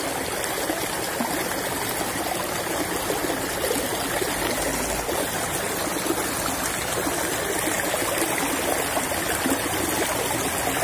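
Water of a narrow irrigation channel flowing and rippling steadily.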